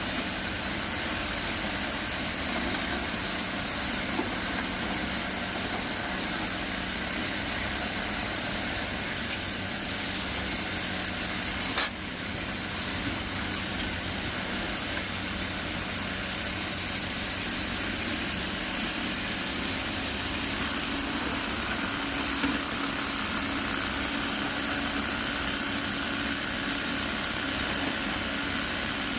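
Komatsu PC210LC excavator's diesel engine running steadily, with a hissing wash of noise and a brief click near the middle.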